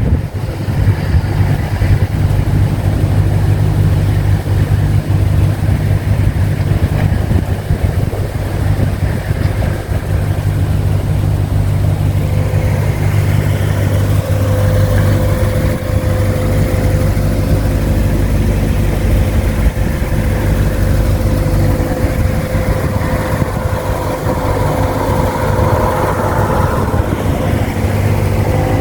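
Toyota Celsior 30-series V8 engine idling steadily, with a steady whine joining about twelve seconds in. This is the abnormal noise of unknown cause that the owner suspects comes from the alternator.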